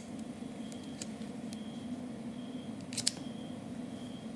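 A few small metallic clicks, with a sharper double click about three seconds in, as the miniature 1:3.5 scale Mauser 98k rifle model is handled in gloved hands. A steady low hum runs underneath.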